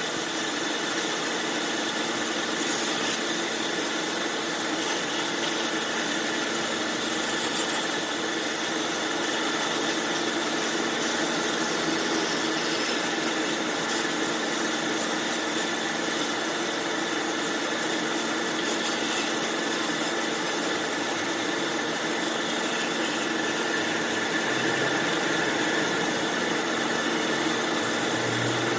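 Bandsaw machine running steadily, a constant mechanical hum with a high steady whine over it.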